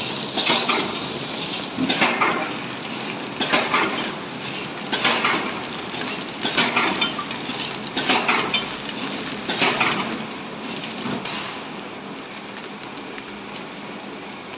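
Horizontal flow wrap packaging machine running, with a burst of rattling noise each wrapping cycle, about every one and a half seconds. The bursts stop a few seconds before the end, leaving a quieter steady machine noise.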